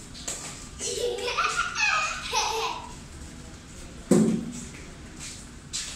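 A young child's high-pitched voice laughing for about two seconds, then a single sharp thump about four seconds in.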